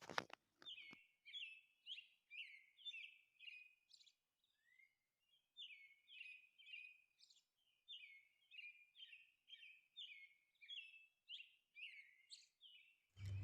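Faint bird chirping: a long series of short, high chirps, about two a second, with a brief pause partway through.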